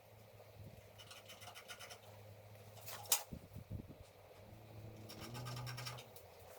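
A scribe scratching marks into a metal saw table wing: two runs of faint, quick scraping strokes, with one sharp click about three seconds in.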